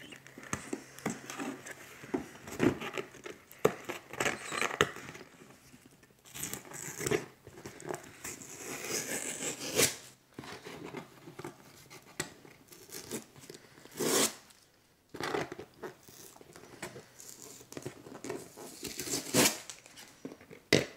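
Packing tape being picked at and peeled off a cardboard shipping box, with scratching, tapping and handling noises from the box and two louder tearing sounds, one about two-thirds of the way through and one near the end.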